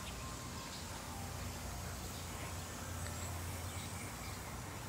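Quiet outdoor ambience: a steady low hum under a faint, even high hiss.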